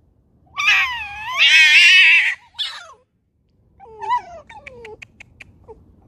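Red foxes squabbling: a long, wavering, high-pitched screech, a short cry, then a lower call followed by a quick rattling chatter of about seven clicks in a second, the gekkering of an argument between foxes.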